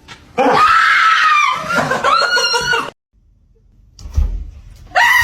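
A person screaming in fright: a long, loud scream followed by a second one, then a low thump about four seconds in and another scream starting near the end.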